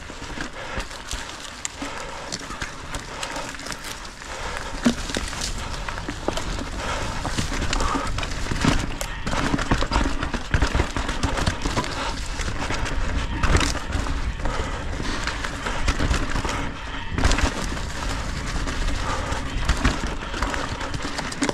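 Mountain bike descending rough, rocky ground: tyres rumbling and the bike clattering and rattling over rocks in a dense, irregular stream of knocks, getting busier from about four seconds in.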